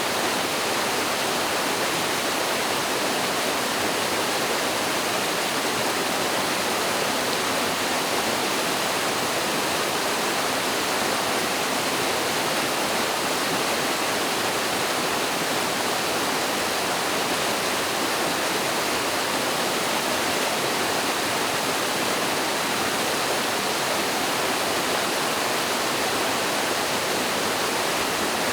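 Mountain stream pouring over a small waterfall: a steady, even rush of water that does not change.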